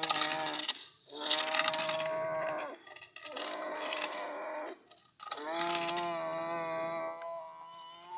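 A young child imitating a brushcutter's motor with his voice: four long buzzing vocal drones, each held for one to three seconds with short breaths between.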